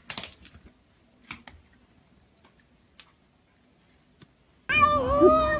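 Faint, scattered taps and scuffs as a hairless Sphynx cat paws and swats at another cat on a tiled floor. Near the end, a loud, drawn-out pitched cry cuts in abruptly.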